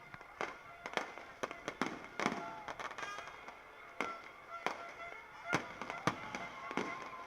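Fireworks bursting overhead: an irregular run of sharp bangs and cracks, about one or two a second, with music playing faintly in the background.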